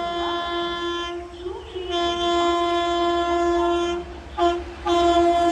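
WAP5 electric locomotive's horn sounding in repeated blasts as the express approaches at about 130 km/h. One blast ends about a second in, a longer two-second blast follows, then a brief toot, and another blast starts near the end. Under the horn is the low rumble of the approaching train.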